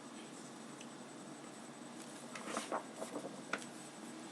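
Faint rustling and a few soft clicks of a picture book being handled as its pages are turned, over quiet room tone, mostly between about two and a half and three and a half seconds in.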